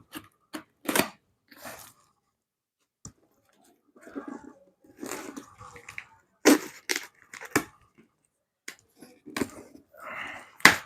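Cardboard and plastic packaging being torn open and handled by hand: irregular tearing, crinkling and sharp cracks and knocks, the sharpest crack just before the end.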